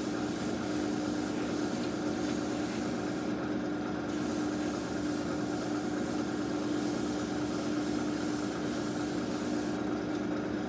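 Mr Hobby PS-290 fan-cap airbrush hissing as it sprays surfacer primer. The hiss breaks off for about a second after three seconds and stops near the end, over a steady machine hum.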